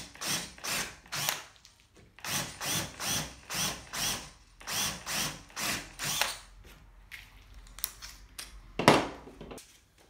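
Cordless drill countersinking a pilot hole in timber with a larger bit, run in short bursts about three a second, in three runs over the first six seconds. Near the end, one sharp knock, the loudest sound.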